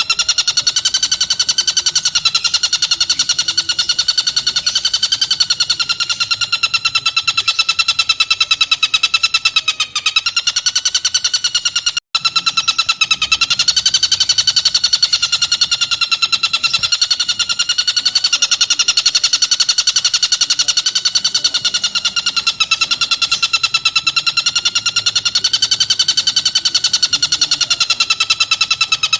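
Tengkek buto singing a long, rapid, unbroken trill whose pitch wavers gently up and down, as a masteran recording for training songbirds. It breaks off for an instant about 12 seconds in.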